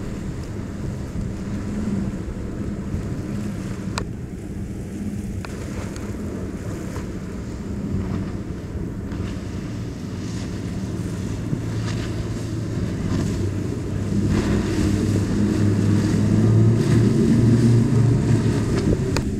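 Outboard engines of center-console boats running at speed, a steady drone that grows louder about two-thirds of the way through, with wind buffeting the microphone.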